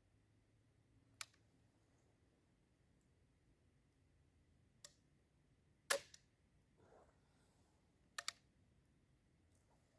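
Sparse sharp clicks from working the lock of a .45 calibre flintlock rifle. There is one about a second in, one near five seconds, the loudest about six seconds in, and a quick double click a little after eight seconds.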